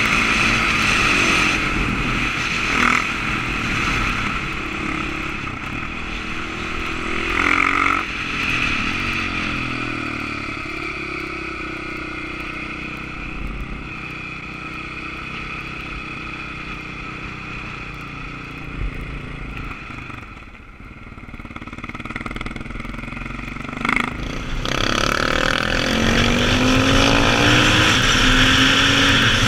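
KTM supermoto's single-cylinder four-stroke engine pulling through the gears and easing off for the bends, its pitch climbing and falling, with wind noise on the microphone. The engine drops back around twenty seconds in, then revs rise again under acceleration near the end.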